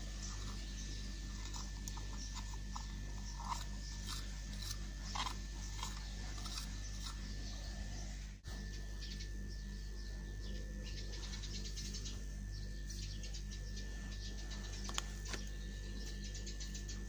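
Small clicks and rattles from an old Soviet spinning reel as it is handled and its handle is cranked, with a spell of fine rapid ticking in the middle, over a steady hum.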